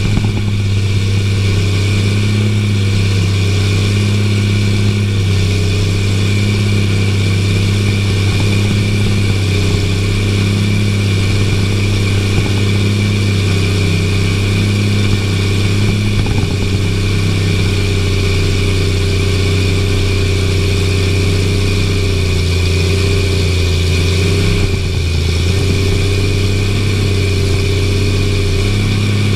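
Cat-powered tractor's diesel engine running steadily as it pulls a cultivator through the soil, heard from inside the cab: a constant low drone, dipping slightly about 25 seconds in.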